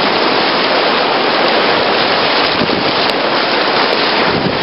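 Whitewater rapids rushing around an inflatable kayak: a steady, loud hiss of moving water.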